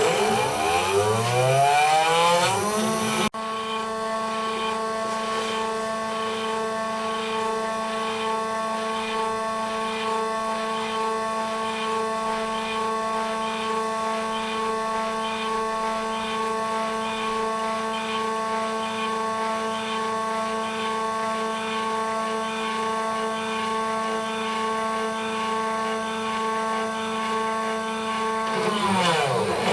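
Homemade CNC engraver's spindle motor running at a steady high whine, with a faint pattern repeating about twice a second. Its pitch rises over the first few seconds and falls near the end as it spins down.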